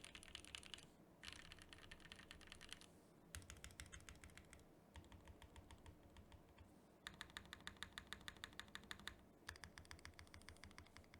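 Custom mechanical keyboard being typed on fast in several bursts of one to two seconds with short pauses between. It is a Venn by Gok with a polycarbonate plate, leaf-spring sandwich mount, lubed Gateron Cream Soda linear switches and CRP keycaps, a deep-sounding build.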